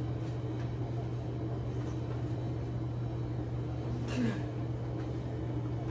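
Steady low hum throughout, with one brief short sound about four seconds in.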